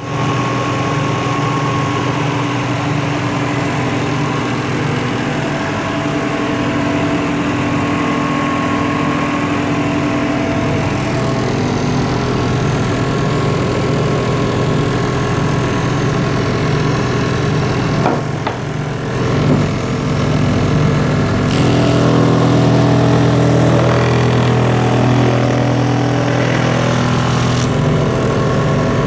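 Homemade drum sander's electric motor and drum running steadily with a constant hum. The sound dips briefly, then changes and grows a little louder about two-thirds of the way through.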